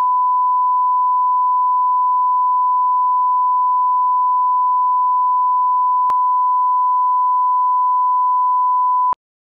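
Steady 1 kHz line-up test tone, the reference tone played with colour bars at the head of a video tape. There is a faint click about six seconds in, and the tone cuts off suddenly near the end.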